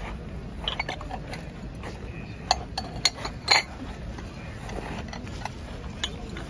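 Glazed porcelain plates clinking against one another as they are handled and set back onto a stack: a scatter of short, sharp clinks, the loudest a quick run about three and a half seconds in.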